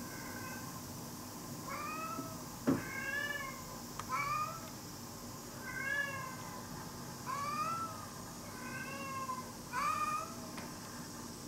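Brown tabby stray cat meowing again and again, about eight short meows that rise and fall in pitch, roughly a second apart. A single sharp tap comes a few seconds in.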